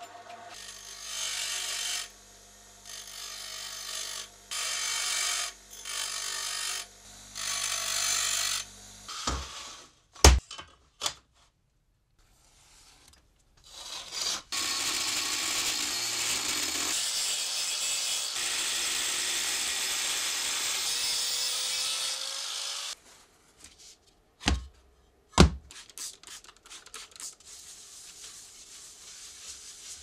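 A bench grinder's motor hums while metal rod ends are ground against the wheel in about seven short bursts, followed by a few sharp knocks. An angle grinder with a cutting disc then cuts through a metal sheet for about eight seconds and stops abruptly. After two more knocks, a cloth rubs over the sheet.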